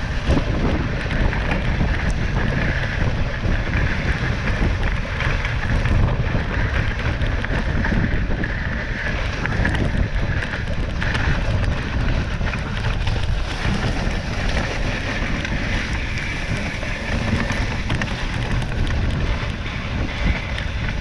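Dog sled runners sliding over a packed snow trail, a steady rushing noise mixed with wind buffeting the microphone.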